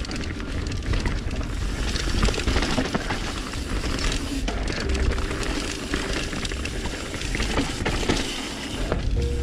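Trek Remedy full-suspension mountain bike clattering down a rocky, loose trail: a constant rattle of tyres, chain and frame over rocks with many sharp knocks, over a low rumble of wind buffeting the camera.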